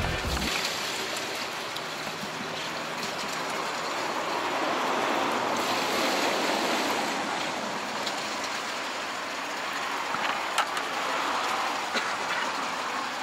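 Steady rushing of running water in a live-fish holding tank, swelling slightly midway, with two light knocks near the end.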